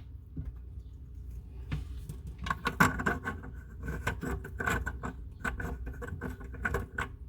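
Irregular light clicks and taps of faucet mounting hardware being handled and fitted under a bathroom sink, starting about two and a half seconds in.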